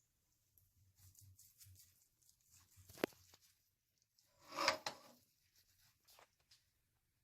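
Faint kitchen sounds of a knife cutting cooked chicken breast on a board, with a sharp knock about three seconds in and a louder scraping rustle about a second and a half later.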